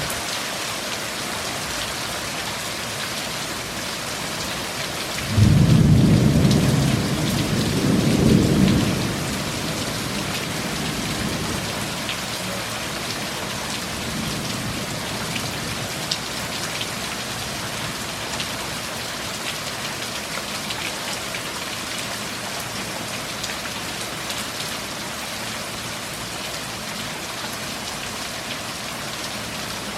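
Steady heavy rain from a thunderstorm, with a loud thunderclap about five seconds in that rumbles low for some four seconds, swelling twice before fading back under the rain.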